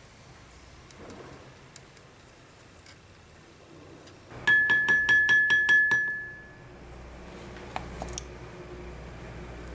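A quick run of about ten metallic clinks in a second and a half, with one clear ringing tone that fades out about a second after the clinks stop.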